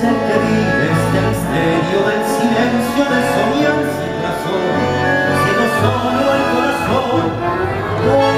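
Live tango orquesta típica playing: bandoneons, violins, double bass and piano, with a male vocalist singing over them.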